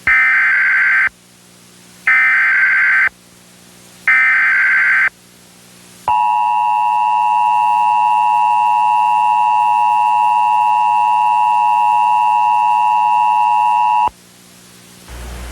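Emergency Alert System tones: three one-second bursts of the warbling SAME digital header, about a second apart, then the steady two-tone EAS attention signal held for about eight seconds before cutting off.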